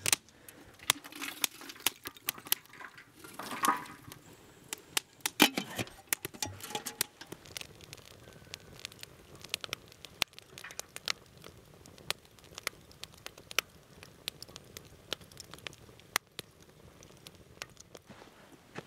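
Firewood burning in an open fire pit, crackling with irregular sharp pops and snaps. The pops come thickest over the first several seconds, with the loudest snap about five and a half seconds in, and thin out after that.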